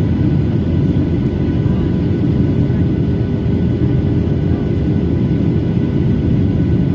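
Boeing 737-900 cabin noise in flight: a steady roar of airflow and the CFM56 jet engines, heard from inside the cabin, with faint steady tones above it.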